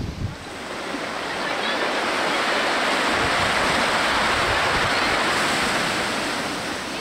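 Heavy storm surf raised by a distant hurricane's swell: a wave breaking and rushing in, swelling over a couple of seconds and slowly dying away near the end.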